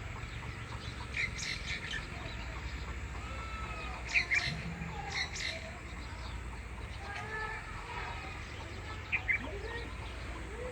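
Birds chirping and calling in short, scattered notes, with a few louder sharp chirps, over a steady low rumble.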